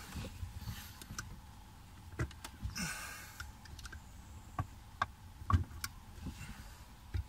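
Scattered light clicks and taps, with a short scrape about three seconds in: a screwdriver and hands prying open the tight plastic housing of a BMW E65 electronic parking brake actuator.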